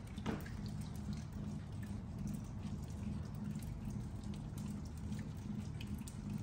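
Scattered drips of water falling at irregular intervals, over a low steady hum.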